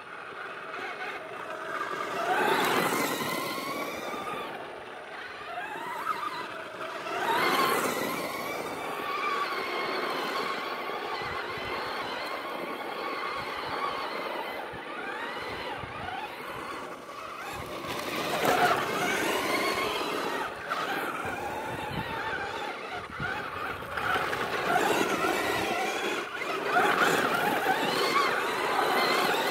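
Electric RC car being driven, its motor whine rising and falling with the throttle and swelling in several bursts.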